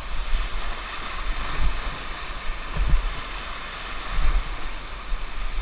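Whitewater rapids rushing and churning around a raft in a steady noise, with uneven low rumbling surges of wind buffeting the microphone.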